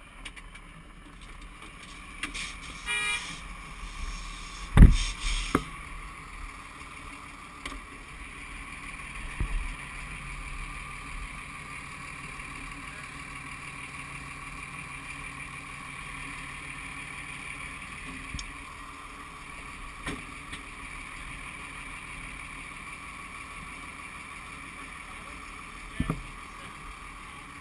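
Fire truck engine running steadily, with a few knocks and one loud thump about five seconds in.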